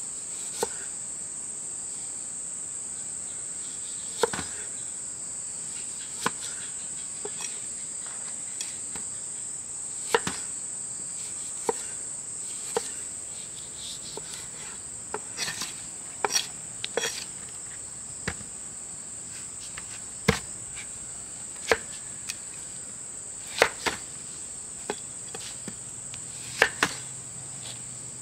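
Insects keep up a steady high-pitched drone throughout. Over it come sharp knocks or taps at irregular intervals, a second or two apart and sometimes in quick pairs, louder than the drone.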